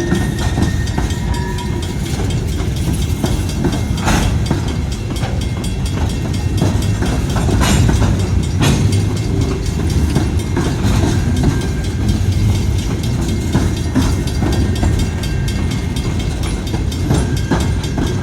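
Freight train cars rolling past with a steady low rumble, wheels clicking over the rail joints and a few sharp clanks, plus a faint wheel squeal later on.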